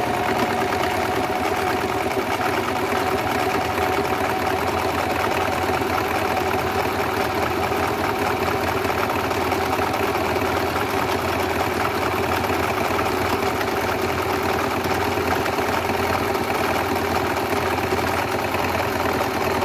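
Singer 1507 electric sewing machine running at a steady speed, its motor humming and needle mechanism clattering as it sews a dense satin stitch through a thick fold of eight layers of fabric.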